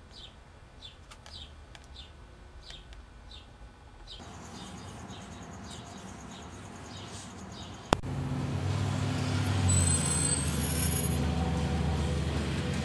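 Faint repeated high chirps, then a sharp click about eight seconds in, followed by the louder, steady low running of a motor vehicle's engine.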